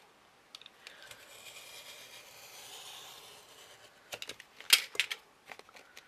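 Snap-off craft knife drawn along a metal ruler, scoring through grey board with a steady scratchy hiss lasting about three seconds. A few sharp clicks and taps follow near the end.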